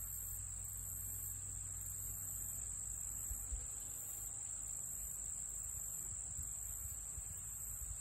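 Late-summer insect chorus: a steady high-pitched trill, with a second, even higher insect call pulsing on and off about once a second. A low rumble sits underneath, with a soft bump about three and a half seconds in.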